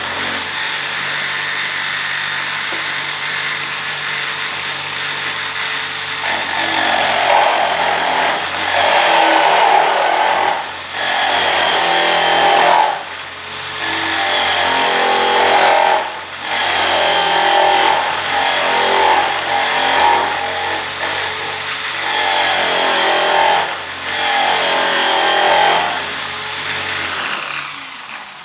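Homemade bench drill running steadily while a small wooden wheel is cut on it. A few seconds in, loud scraping of the cutter in the wood starts, with short breaks every few seconds as the tool is eased off and pressed back in.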